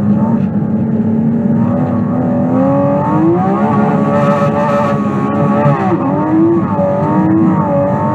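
Porsche 718 Cayman GT4 RS's naturally aspirated flat-six engine running hard under load, its pitch climbing about three seconds in, dipping briefly near six seconds, then climbing again.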